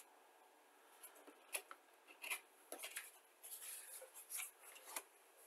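Faint rustling and scattered light clicks of hands handling plastic model-kit parts and their packaging.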